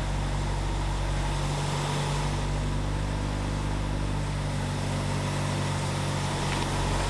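Nissan SR20DET turbo four-cylinder engine idling steadily, freshly started on newly installed fuel injectors. It grows slightly louder near the end.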